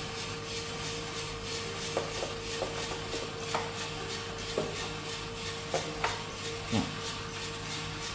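Skywalker drum coffee roaster running with a steady hum as the beans tumble in the turning drum, before first crack. Between about two and seven seconds in come a few light clicks and clinks as the sample trier is slid back into the drum.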